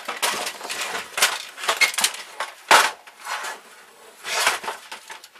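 Stripped plastic printer chassis handled on a wooden workbench: a run of clattering knocks, rattles and scrapes as it is lifted, turned over and set down, the sharpest knock a little under three seconds in.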